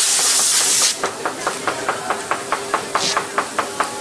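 A loud hiss for about the first second, then a quick, even run of clicks, about six a second, over a faint steady hum.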